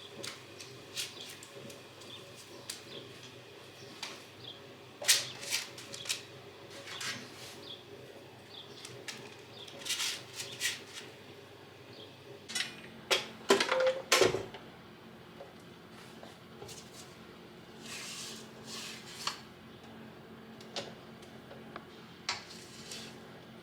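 Kitchen handling noises: scattered clicks, knocks and clatter of dishes and utensils, with a cluster of louder knocks about halfway through, over a steady low appliance hum.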